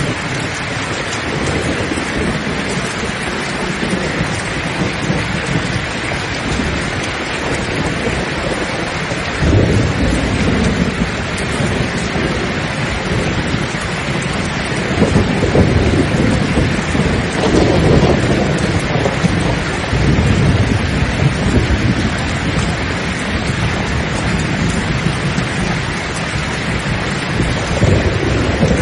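Steady heavy rain with rolling thunder. The thunder starts about a third of the way in and swells several times.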